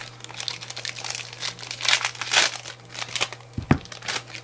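Plastic trading-card pack wrappers crinkling and cards rustling as they are handled, in short irregular bursts over a steady low hum.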